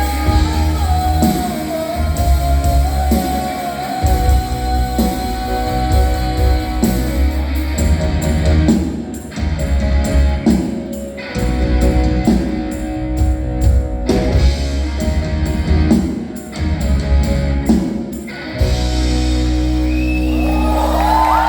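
Live band playing rock with percussion and electric guitar, a female singer's voice over the first several seconds. From about eight seconds in the band plays short stop-start hits with brief gaps, then lands on a long held final chord near the end.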